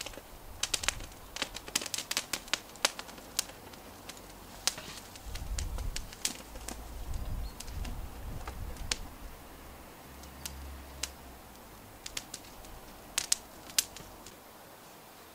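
Dry-grass tinder bundle crackling with sharp pops and snaps as a bow-drill ember blown up inside it bursts into flame. A low rushing sound runs for several seconds in the middle as the bundle flares up, and a few loud snaps come near the end.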